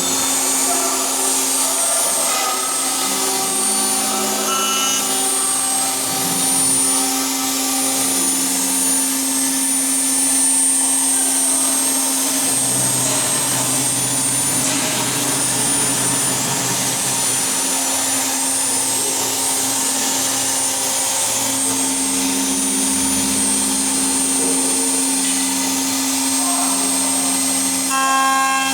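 HSD electrospindle of a CNC machining center running at high speed and milling an aluminium profile. It gives a steady hum under a continuous rushing hiss, with thin high whines and shifting tones that come and go.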